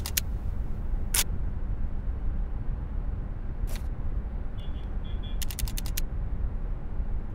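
Low steady room hum with short runs of quick, sharp clicks, heard a few times, and a faint short high-pitched double beep about five seconds in.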